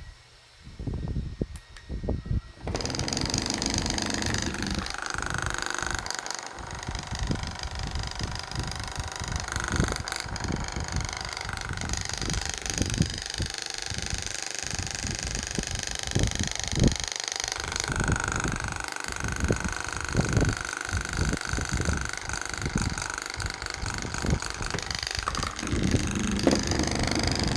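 Dr. Air Recovery Gun Pro massage gun running after reassembly, starting about three seconds in: a steady motor sound whose pitch shifts now and then, over irregular low knocks.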